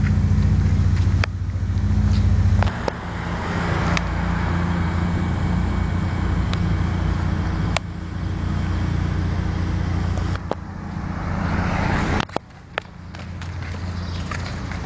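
Street traffic, with a motor vehicle engine running steadily close by as a low hum that changes about three seconds in and fades away about twelve seconds in. Scattered short clicks come over the top.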